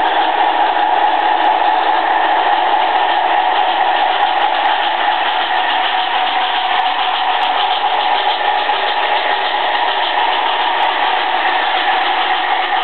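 HO-scale model train running, with a metal MTH GS-4 steam locomotive and a Märklin PA-1 diesel pulling together: a steady whirring hum of the locomotive motors and the wheels rolling on the track.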